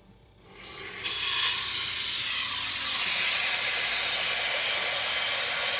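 Water supply turned on to a float-valve automatic dog waterer: water hisses through the hose and valve, swelling from about half a second in to a steady hiss within a second.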